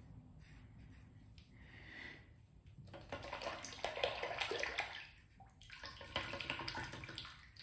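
Tap water running and splashing over a safety razor head as it is rinsed, in two spells of about two seconds each with a short break between.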